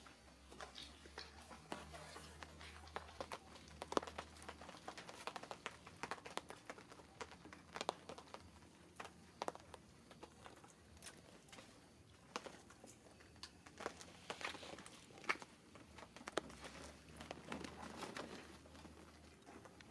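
Faint, irregular crinkling rustles and clicks, scattered unevenly, with a few sharper snaps around four, eight and fifteen seconds in.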